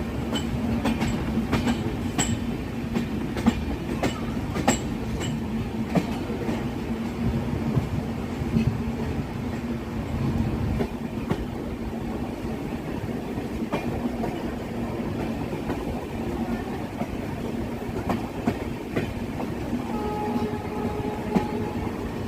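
Passenger train running along the track with a steady low rumble and hum, and sharp clicks of the wheels over rail joints, most frequent in the first few seconds. A faint steady tone sounds for about two seconds near the end.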